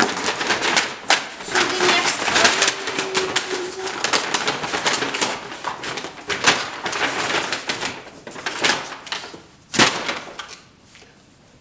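Brown paper grocery bag rustling and crinkling as a hand rummages inside it, with one sharp knock about ten seconds in, after which it goes quieter.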